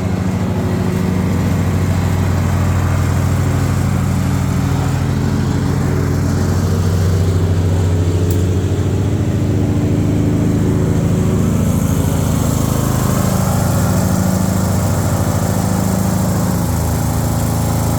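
Riding lawnmower engine running steadily.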